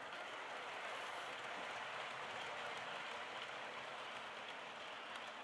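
Hornby OO gauge Class 60 model train hauling tank wagons, running steadily round a curve of track: a continuous light rattling hiss of small wheels on the rails, swelling a little as the wagons pass close and easing slightly near the end.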